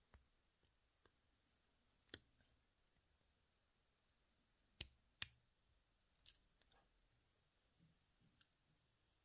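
Faint, sharp metallic clicks of steel pliers against a small coil spring and brass pump part as the spring is worked into place. The clicks are scattered, with the two loudest close together about five seconds in.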